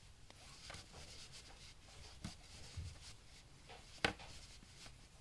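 Faint rubbing and handling noise of knitting needles and yarn being worked by hand, with one sharp click about four seconds in.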